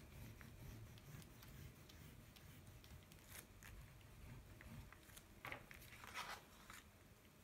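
Faint scratchy rubbing of fingers blending pastel on paper, with a few short louder scrapes in the second half.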